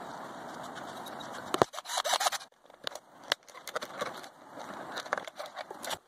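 Hard plastic parts being handled and fitted together: scraping and rustling with a run of sharp clicks, the loudest about a second and a half in.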